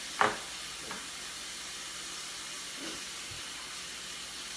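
Steady background hiss, with one short, sharp sound about a quarter of a second in and two fainter brief sounds later.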